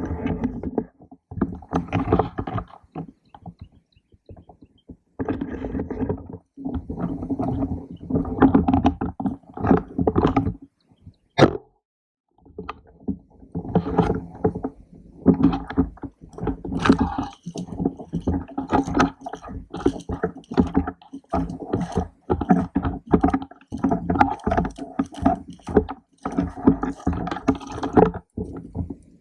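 Movement and handling noise from a camera mounted on an airsoft rifle: irregular rustling, scraping and footsteps as the player moves, with a single sharp click about eleven seconds in.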